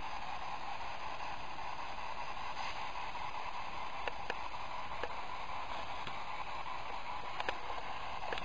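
Steady hiss of radio-like static, with a few faint clicks about four to five seconds in and again near the end.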